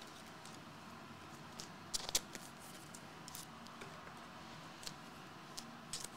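Trading cards being handled: a few light clicks and rustles of card stock over a faint steady hiss, the loudest about two seconds in.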